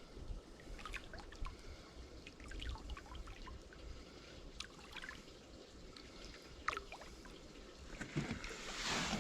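Faint trickling and dripping of water with small scattered ticks, as a released blue catfish is held in the water beside the boat; a louder swish of water builds near the end.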